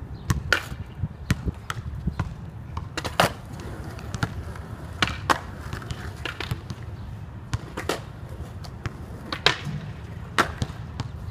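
Skateboard wheels rolling on concrete with a steady low rumble, broken by several sharp clacks of the board hitting the concrete ledge and steps.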